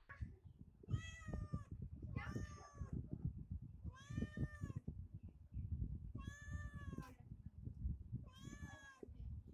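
Domestic cat meowing five times, about two seconds apart, each call rising and then falling in pitch, begging for the raw chicken held above it.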